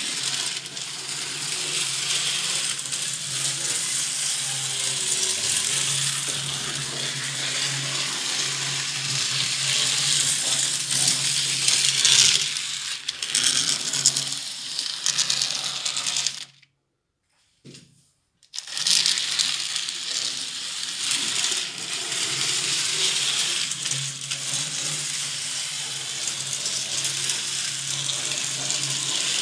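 N-scale model train running on the layout's track: a steady electric motor whir with the rattle of small wheels on the rails. It cuts out suddenly for about two seconds just past halfway, then carries on the same.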